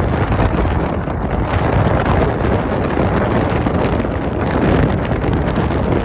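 Wind buffeting the microphone: a loud, steady rushing noise, heaviest in the low end, with no let-up.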